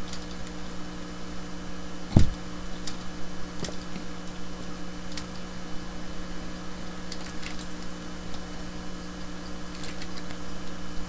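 Scattered clicks of a computer mouse and keyboard over a steady electrical hum, with one stronger dull thump about two seconds in.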